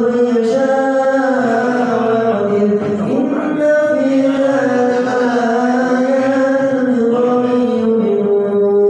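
A man's solo voice chanting unaccompanied in a melismatic style, holding long, ornamented notes that slide and waver in pitch, with a short breath about three seconds in.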